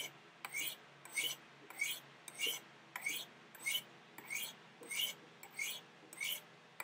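Knife blade drawn down the ultra-fine ceramic rods of a Spyderco Sharpmaker, alternating left and right, a short rising scraping hiss about every 0.6 s. It is honing a fine micro bevel at the 40-degree setting to touch up the edge.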